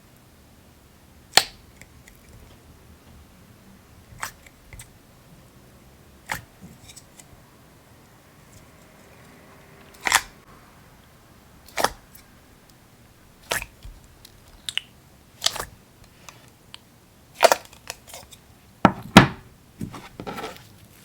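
Slime being pressed and played with by hand, giving sharp pops and clicks every second or two, more of them and louder near the end.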